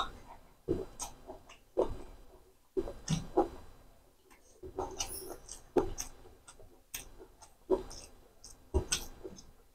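A person chewing a handful of rice and chicken liver curry with wet lip-smacking, in irregular short smacks and clicks about once a second.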